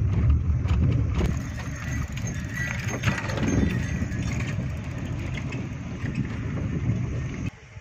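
Road noise and engine rumble of a moving car heard from inside the cabin; the deep rumble eases after about a second and the sound cuts off abruptly shortly before the end.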